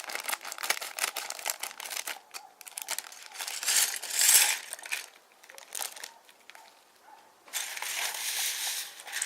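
Plastic parts bag crinkling and rustling, with small plastic building bricks clicking and rattling against each other as pieces are sorted out. Dense rapid clicking comes first, then two longer rustles.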